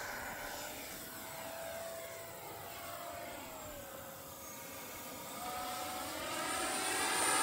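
FMS F-86 Sabre 80 mm electric ducted-fan RC jet flying at a distance: a steady fan whine that drops in pitch a little past the middle, steps back up in the second half, and grows louder toward the end as the jet comes closer.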